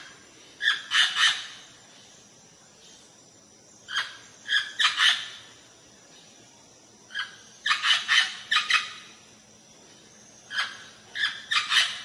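Green parrot giving loud, harsh squawks in four short bursts of several calls each, a few seconds apart.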